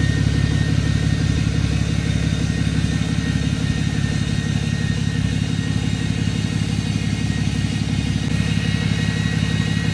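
Vehicle engine running steadily at an even speed, with a faint steady high whine above it.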